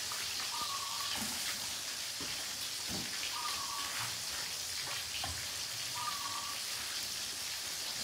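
Oil sizzling steadily in a wok as fish fries. A short faint chirp recurs every two or three seconds, and there are a few light knocks.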